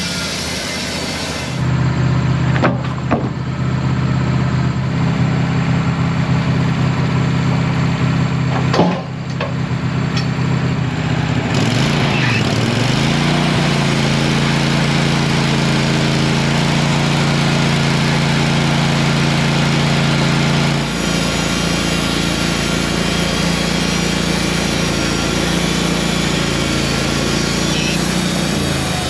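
Wood-Mizer portable band sawmill running as it saws a pine log into 4x4s, a steady engine drone with the blade in the cut. The engine note steps up about a second and a half in, dips and climbs back about twelve seconds in, and changes again around twenty-one seconds.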